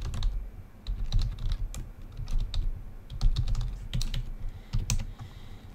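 Typing on a computer keyboard: an irregular run of key clicks that dies away near the end.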